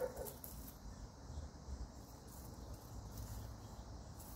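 Faint background of insects chirping steadily, high-pitched, over a low rumble.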